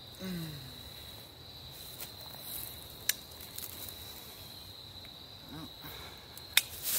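Insects trilling steadily on one high note, with sharp clicks about three seconds in and again near the end as the folding saw is handled and closed.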